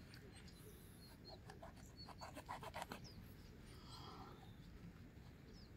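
Near silence: a low steady background rumble, with a short run of soft scratching clicks about two to three seconds in.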